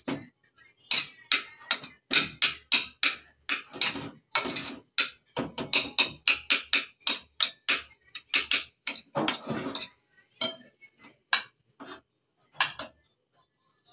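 Rapid series of sharp knocks and clatter from kitchen utensils, about two to three a second, thinning out to a few scattered hits near the end.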